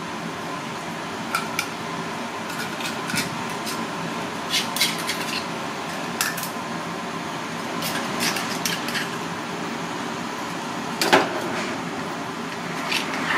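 A small steel knife prying open blood clams: scattered sharp clicks and scrapes of the blade against the ribbed shell, the loudest about eleven seconds in, over a steady background hum.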